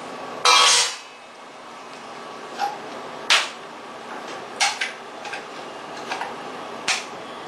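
A loud clatter about half a second in, then a series of short, sharp knocks and clacks, about six of them, over a steady background hiss.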